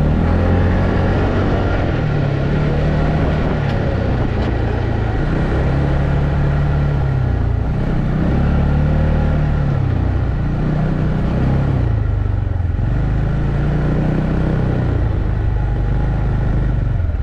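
ATV engine running under way, its pitch rising and falling again and again as the revs change.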